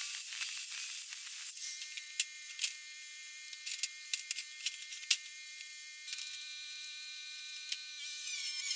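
Circular saw cutting through steel flat stock, finishing about a second and a half in. Then sharp metallic clicks and clanks of the metal being handled over a steady hum, and an angle grinder starts up near the end.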